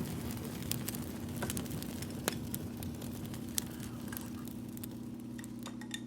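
Fire crackling, with scattered irregular pops over a steady low hum.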